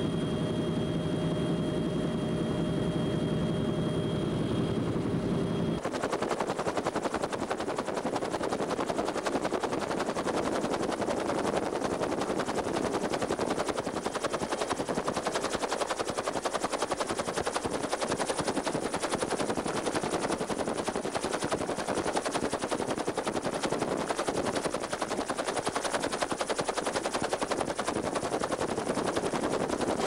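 UH-1 Huey helicopter heard from inside the cabin: at first a steady turbine whine with engine tones over the rotor noise, then about six seconds in the sound changes abruptly to a harsher, rapid chopping rush of rotor and wind that continues throughout.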